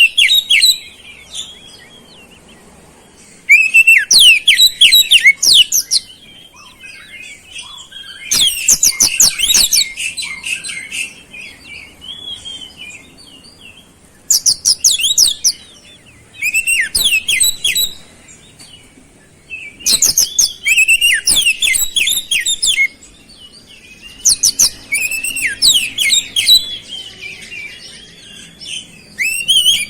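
Oriental magpie-robin (kacer) singing in repeated bursts of rapid, high chattering and whistled notes, each burst lasting a couple of seconds with short pauses between. Its song is filled with mimicked flowerpecker (cabe-cabean) calls.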